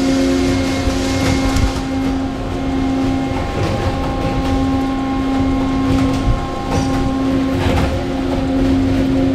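Workshop machinery running with a steady hum and scattered clicks and rattles.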